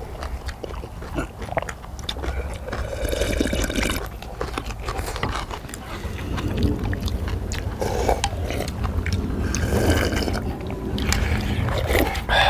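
Several people eating galbitang (Korean beef short rib soup): slurping broth and noodles and chewing, with spoons and chopsticks clicking against earthenware pots, over a steady low rumble.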